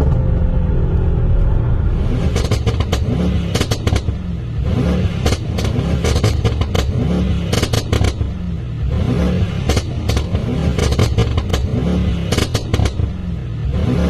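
Mercedes-AMG GT 63 S 4-door's twin-turbo V8, tuned to Stage 1 with downpipes, revved repeatedly. Each rev is followed by a cluster of rapid exhaust crackles and pops over the engine's low rumble.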